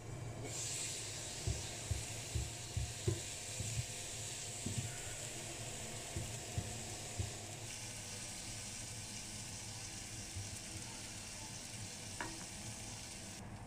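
Asparagus and garlic sizzling in a frying pan, the sizzle growing louder as the glass lid comes off. Tongs knock against the pan several times as the spears are tossed.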